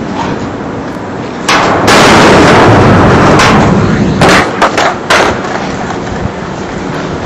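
Skateboard wheels rolling loud and harsh across a van's metal roof for about two and a half seconds, then three sharp cracks as the board and skater land on the pavement.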